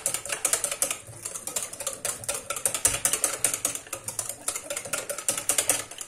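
Wire balloon whisk beaten fast by hand through liquid egg batter in a glass bowl, its wires clicking rapidly against the glass. The clicking stops at the very end.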